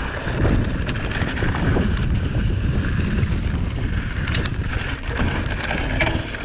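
Mountain bike riding down a loose, sandy trail: wind buffeting the microphone over the low rumble of the tyres, with scattered clicks and rattles from the bike over the rough ground.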